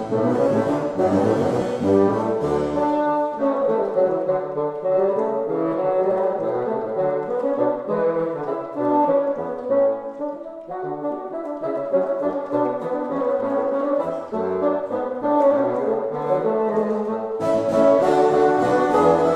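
Baroque chamber music played live by a bassoon ensemble with contrabassoon and harpsichord continuo: reedy bassoon lines moving in many short, quickly changing notes.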